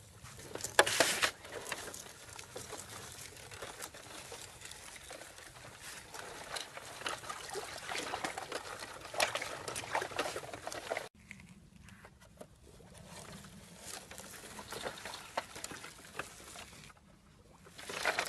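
Irregular clicking and rattling of small hard pieces, a pattering like grains or pellets being poured, with a sudden cut about eleven seconds in after which it is quieter.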